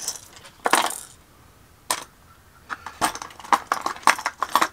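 Hard fishing lures and their metal treble hooks clinking and clattering against each other as a hand rummages through a plastic tackle box. There is a short clatter just under a second in, a single click at about two seconds, then a quick run of clinks near the end.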